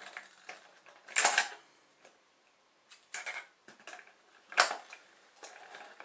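Metal clicks and clunks of a deadbolt's halves being lined up and pushed together through a wooden board: a cluster of clicks about a second in, a sharp click a little past the middle, and fainter ticks between.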